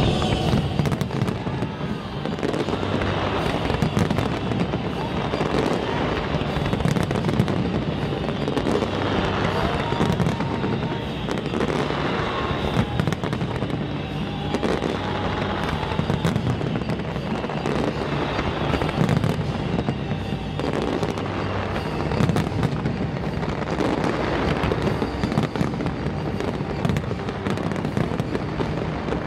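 Aerial fireworks display going off: a dense, continuous run of bangs and crackling shell bursts, loud throughout.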